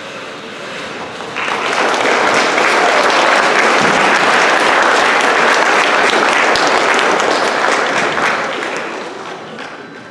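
Audience applause in an auditorium, rising sharply about a second and a half in, holding steady, then dying away near the end.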